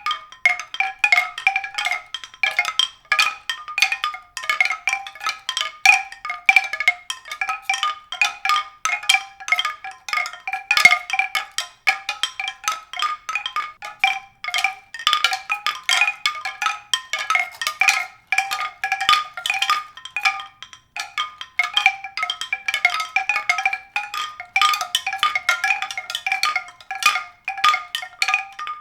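Tuned percussion: a dense, continuous stream of quick struck, ringing notes in the mid-to-high register.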